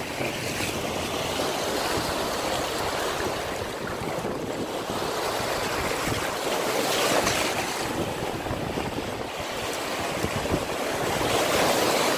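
Small surf waves breaking and washing in over the sand at the water's edge, a steady hiss of foam that surges louder about seven seconds in and again near the end as a wave breaks. Wind buffets the microphone underneath.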